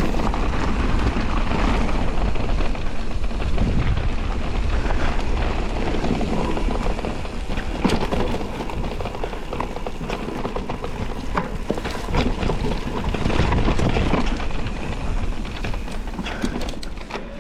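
Electric enduro mountain bike riding down a rough trail: a steady rush and rumble of tyres on dirt and stones with wind on the microphone, broken by frequent sharp clicks and rattles.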